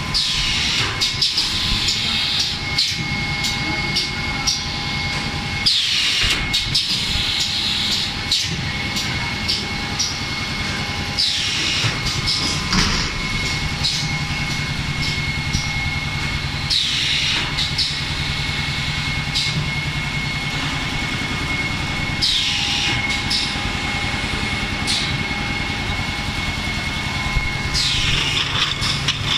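Automatic 3-cavity PET bottle blow-molding machine cycling, with a steady hum and pneumatic clacks. About every five and a half seconds there is a loud burst of compressed-air hiss that falls in pitch as each blow cycle vents. The machine is running slower than its rated speed because the compressor is short of air.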